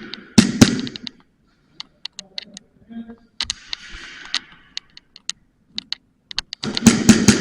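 Sharp clicks and pops typical of gas blowback airsoft pistols (hi-capas) firing and BBs striking hard surfaces. There is a loud cluster in the first second, scattered single clicks in the middle, and another dense burst near the end.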